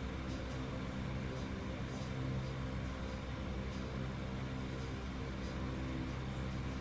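A steady low hum, with faint soft clicks now and then.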